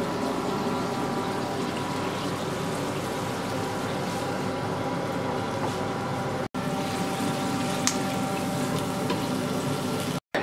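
A covered frying pan of hake, clams and baby potatoes simmering in white wine and lemon juice over a gas burner: a steady watery bubbling under a constant hum. The sound cuts out for an instant about six and a half seconds in and again near the end.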